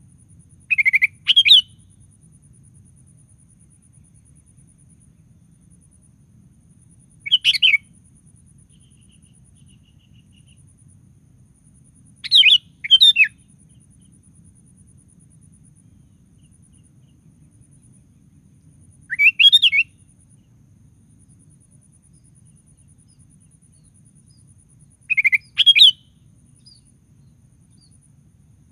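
Sooty-headed bulbul singing short, bubbly whistled phrases: five brief phrases about six seconds apart, most made of two quick notes.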